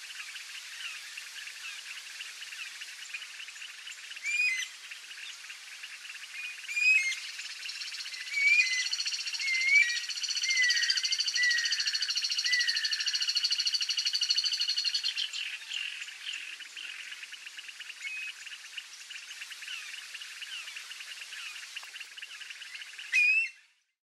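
A marsh frog chorus: many frogs calling together in a dense, steady, fast-pulsing chatter. Several louder short chirps that rise and fall in pitch sound over it, and a high trill joins for several seconds in the middle.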